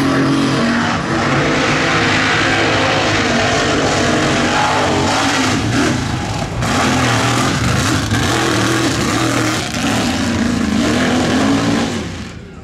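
Mud-racing buggy's engine running hard at high revs, loud and steady, falling away near the end.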